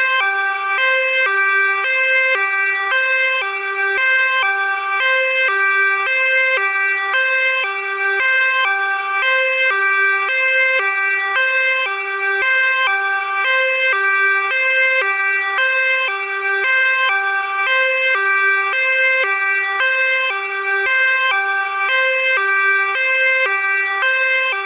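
Ambulance two-tone siren, alternating evenly and continuously between a lower and a higher pitch.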